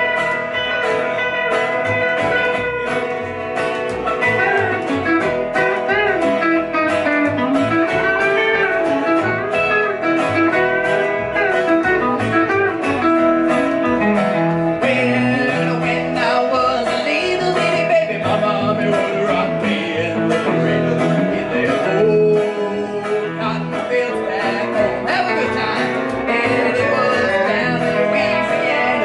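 Live band music: electric guitar, upright double bass and acoustic guitar playing a country-blues tune.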